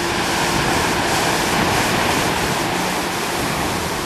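Surf and choppy sea with wind buffeting the microphone, a steady rushing noise. Underneath runs a faint steady drone from the tow boat's outboard motor.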